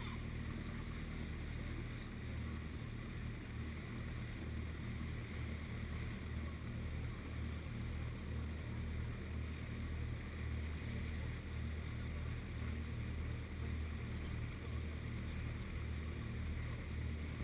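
The Mary Ann Hepworth's engine, in the old lifeboat, running with a steady low drone as she motors along under way. Wind and water rush past the bow.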